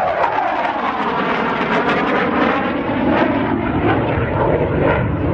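Denel Cheetah C fighter's Atar 9K50 turbojet running loud as the jet flies past, its pitch dropping over the first second, followed by a steady, wavering jet rush.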